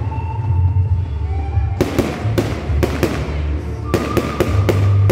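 Aerial fireworks going off in rapid volleys of sharp bangs. The first cluster starts about two seconds in and a second comes near the end. Music with a heavy bass plays under them.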